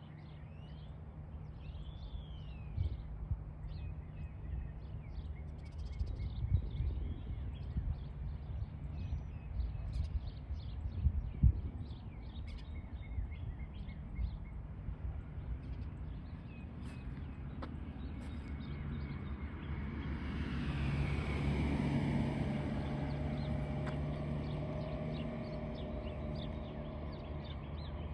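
Birds chirping and calling over a low outdoor rumble, with two short low thumps in the first half. About two-thirds of the way in, a vehicle passes, swelling and then fading away.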